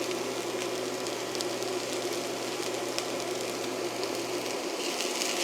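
Chopped onion and garlic sizzling in a frying pan, a steady hiss with a few small ticks, getting louder near the end.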